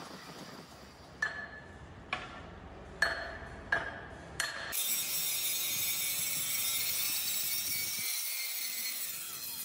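Metal clinking: five sharp strikes roughly a second apart, each ringing briefly, followed by a steady high hiss from about halfway through.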